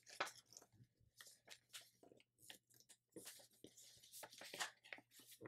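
Faint, scattered crinkles and rustles of a thin sheet of paper being folded and creased by hand.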